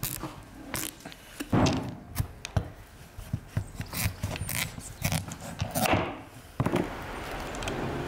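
A large kitchen knife cutting through a pumpkin's hard rind and flesh on a wooden cutting board: crunching cuts and repeated knocks of the blade and fruit on the board. About two-thirds of the way in it gives way to a steady background hiss.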